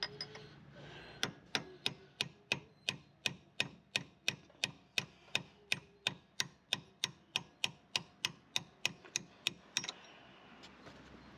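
Hammer striking a chisel set against a stubborn brake disc retaining screw, chasing the screw round to undo it. A steady run of sharp metal strikes, about three a second, starting a second in and stopping near the end.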